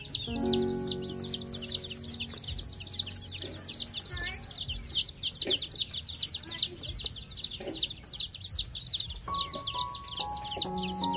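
A brood of young chicken chicks peeping constantly, many quick high downward-slurred peeps overlapping. Soft background music with held notes plays under it at the start and again near the end.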